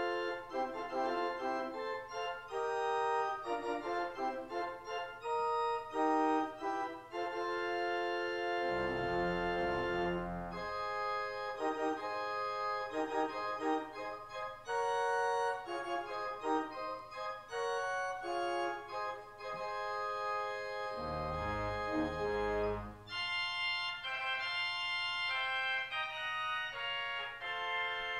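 Church organ playing a prelude in sustained chords, with deep bass pedal notes coming in twice.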